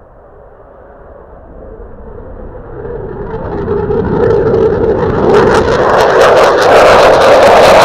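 JASDF F-15 Eagle fighter climbing out on afterburner. The roar of its twin afterburning turbofans grows steadily louder as it nears, and harsh crackling comes in over the last few seconds.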